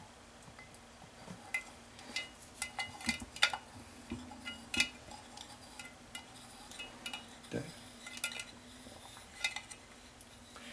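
Scattered small clicks, clinks and faint scrapes from hands working a chrome bathtub spout while a Teflon-taped threaded fitting is screwed into it by hand.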